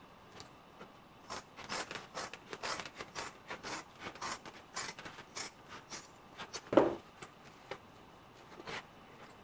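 Large fabric scissors cutting through two stacked layers of felt in a run of quick, short snips, with one much louder clack about two-thirds of the way through and a few scattered snips after it.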